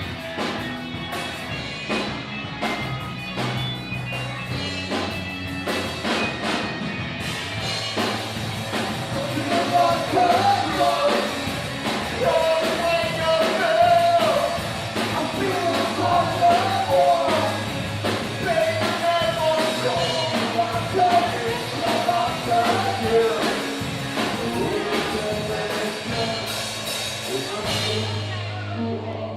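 Rock band playing, with drums and guitar, and a singer coming in about ten seconds in; the high crashing drops away near the end.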